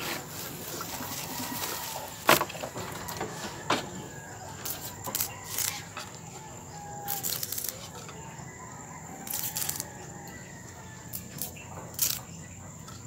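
Moringa (malunggay) leaves rustling and stems snapping as they are stripped off by hand, in short, irregular bursts a second or so apart.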